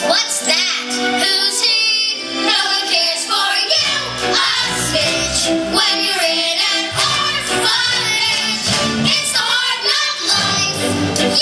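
Young girls singing a musical-theatre song together with instrumental accompaniment.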